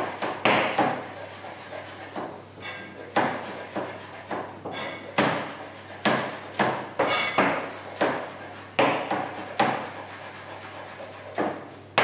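Kitchen knife finely chopping fresh flat-leaf parsley on a chopping board: irregular knocks of the blade on the board, a few a second in short runs, with some scraping between them.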